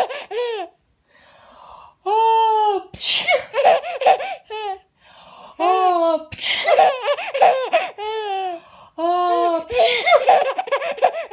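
A woman sneezes three times, each sneeze a drawn-out, rising 'ah...' build-up ending in a sharp 'choo', and each is followed at once by a baby laughing in quick bursts.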